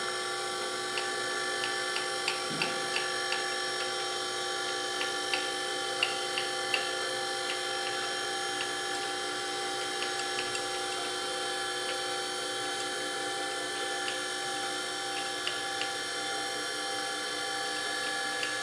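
Table of a Gardner model 618 surface grinder being cranked by hand along its roller-bearing ways. It gives scattered light clicks and ticks over a steady hum of many tones. The travel is smooth, with no tight or loose spots.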